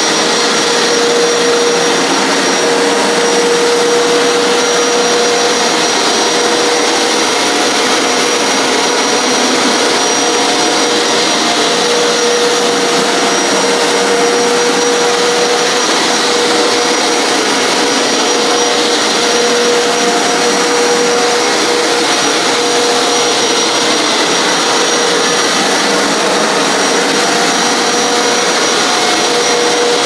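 Hoover PowerScrub XL Pet upright carpet cleaner running steadily while being pushed over carpet: a loud, even rushing noise of its suction motor with a steady whine on top.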